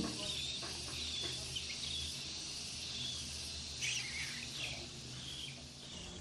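Lovebirds giving short, high chirps, faint over a steady hiss and low hum, with a brief denser cluster of calls about four seconds in.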